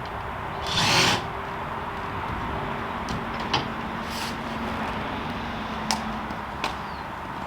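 Hand work on a car's brake assembly: a short loud hiss about a second in, then a few sharp metal clinks of tools over a steady background noise.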